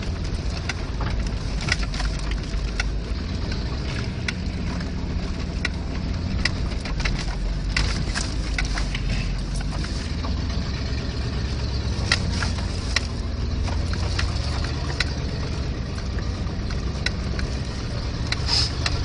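A truck engine runs steadily at low speed, heard from inside the cab on a rough dirt trail. Frequent short knocks and rattles sound as the vehicle jolts over the ground.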